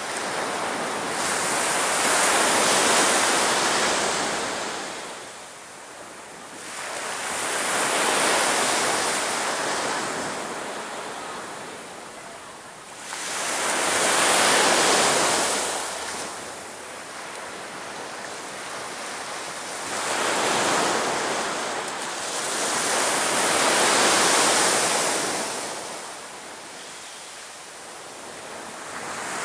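Sea surf breaking and washing up on a sandy beach. Five waves swell and fade away, one about every five to six seconds.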